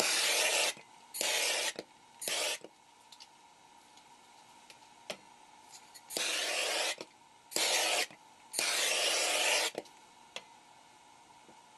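Handheld gas torch hissing in six on-and-off bursts, each about half a second to a second long, three near the start and three more from about six seconds in. The flame is being swept over freshly poured epoxy to pop the air bubbles.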